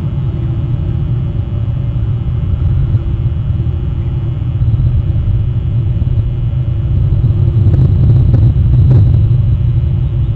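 Steady low rumble picked up by an outdoor wildlife camera's microphone, growing a little louder about seven seconds in, with a few faint clicks near the end.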